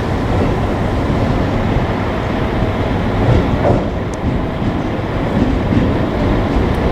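JR Kyushu 787-series electric train running along the track, a steady rumble of wheels on rails.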